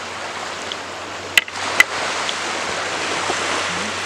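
Steady rushing wash of sea waves and wind across the microphone. Two sharp clicks come about half a second apart a little over a second in.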